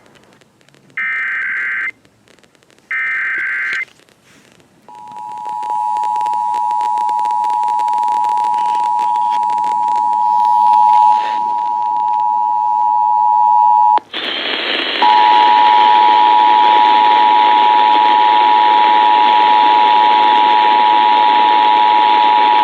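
Emergency Alert System SAME header data bursts: the last of the short, raspy digital tone bursts, each about a second long with gaps between. They are followed by the EAS two-tone attention signal (853 and 960 Hz sounding together), a steady loud dual tone. The attention signal breaks off after about nine seconds and starts again a second later over a loud hiss, running until near the end.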